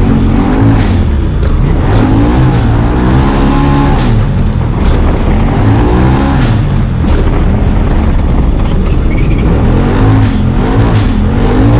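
Side-by-side UTV engine racing on a dirt track, heard from on board: the pitch climbs and drops again and again as the throttle opens and closes, over heavy wind and dirt noise. Sharp ticks are scattered throughout.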